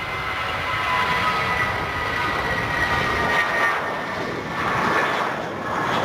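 Jet airliner passing close by: a high engine whine with several steady tones slowly falling in pitch, giving way after about three and a half seconds to a broad rushing jet noise.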